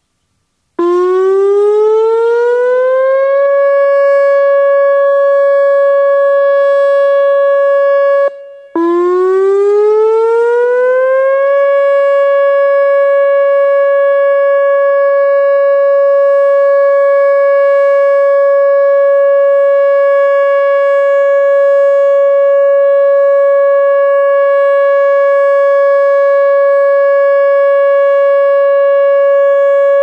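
Whelen WPS-2907 electronic outdoor warning siren sounding its steady alert tone. The pitch glides up like a siren winding up, then holds one note. Past the middle it cuts out for a moment, then glides up again and holds steady.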